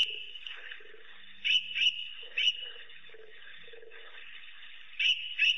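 African wild dogs giving short, high-pitched calls, about six in all: one at the start, three close together a second and a half to two and a half seconds in, and two more near the end. The calls come while the pack mobs a crocodile at a waterhole.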